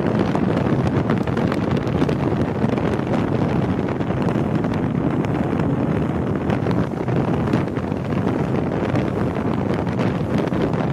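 Steady wind rumble buffeting the microphone on a rigid-hull inflatable boat underway, mixed with the rush of the boat running over the water.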